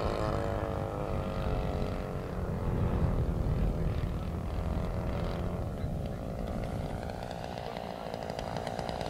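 Engine of a Piper PA-20 Pacer running steadily as it flies overhead and turns, its note getting stronger again near the end as it comes back toward the field.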